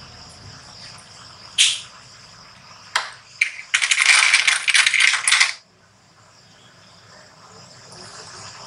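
Small plastic sewing clips clicking and clattering as they are handled and snapped onto fabric: a couple of sharp clicks, then a dense rattle lasting about two seconds in the middle.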